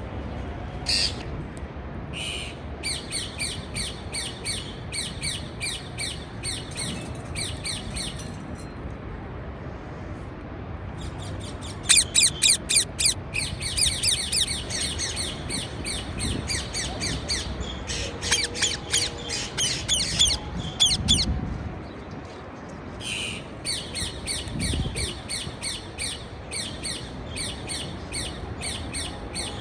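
Parakeets squawking and chirping in quick runs of short, high, repeated calls, several a second, with a brief pause partway through.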